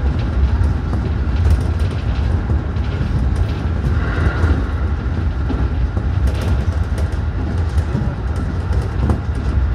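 JR 211 series electric commuter train running along the track, heard from just behind the driver's cab: a steady low rumble of wheels on rail with occasional light clicks.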